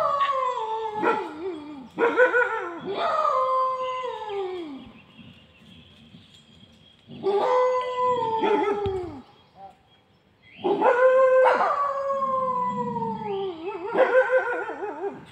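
Wolves howling in chorus, several voices overlapping, each long call sliding down in pitch and wavering near its end. The howling comes in three bouts, with lulls about five seconds in and again around nine to ten seconds.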